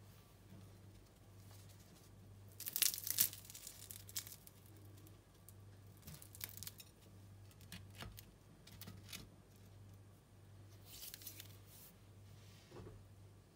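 Crisp deep-fried chicken roll being broken open by hand, its fried pastry wrapper crackling and tearing in a few short bursts, the loudest about three seconds in, over a low steady hum.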